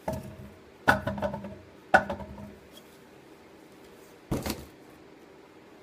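Four sharp knocks with a brief metallic ring as a stunt scooter is handled and set down. The second and third knocks, about a second apart, are the loudest, and the last comes a little over two seconds later.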